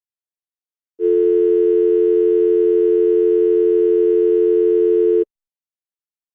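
Telephone dial tone, the North American two-note kind: one steady hum that starts abruptly about a second in and cuts off suddenly about four seconds later.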